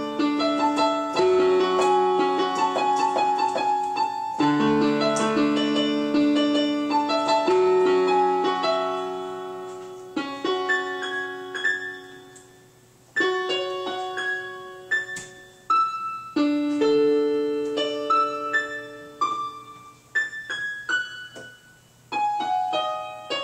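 Electronic keyboard played with a piano sound: held chords for about the first ten seconds, then slower single notes and short phrases that ring out and fade, with brief pauses between.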